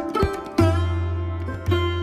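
Background instrumental music: plucked string notes, some bending in pitch, over a steady low drone.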